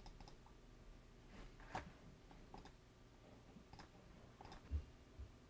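Near silence with a few faint, irregular computer mouse clicks as an installer is clicked through, and one soft low thump near the end.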